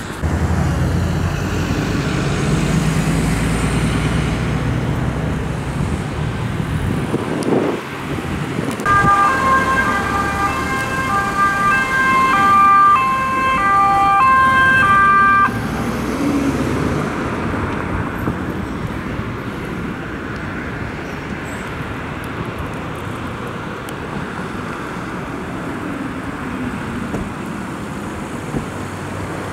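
Emergency vehicles driving past with engine and road noise. From about nine seconds in, a two-tone siren alternates between a high and a low note for about six seconds, then fades into steady traffic noise.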